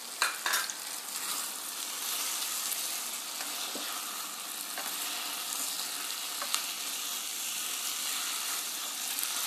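Paneer, capsicum and onion sizzling in a hot ceramic-coated pan with cornflour slurry in it, stirred with a spatula: a steady frying hiss, with a couple of sharp clicks near the start.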